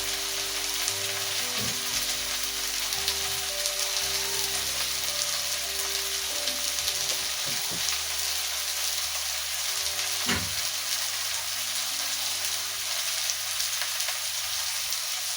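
Onions frying in cooking oil in a pan, a steady sizzle, with soft background music underneath. A single sharp knock comes about ten seconds in.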